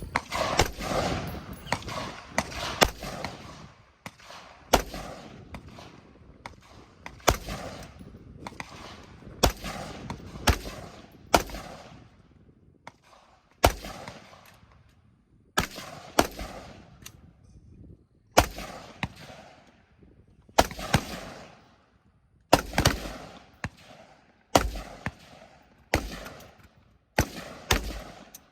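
A long string of single gunshots at an uneven pace, roughly one every second or so, each shot followed by an echoing tail.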